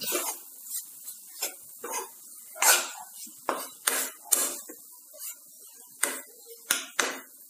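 Spoon scraping and knocking against a kadhai as poha (flattened rice) and vegetables are stirred, in short irregular strokes about two a second.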